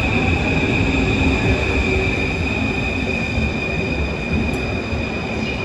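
Paris Métro train pulling out of the station: a low rumble of the cars on the track with a steady high-pitched whine over it, easing off slowly as the train goes away.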